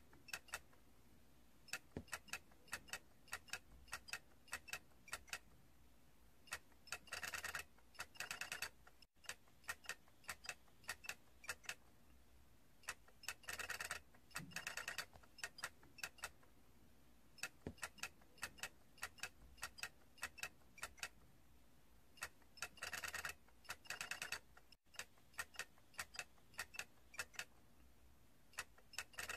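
Small plastic toy figures clicking: light, irregular ticks, broken every several seconds by a short burst of rapid clicking.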